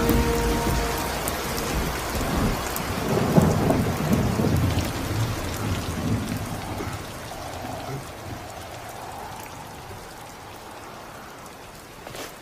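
Rain falling steadily with rolling thunder that rumbles at first and slowly dies away. A short sharp crack comes near the end.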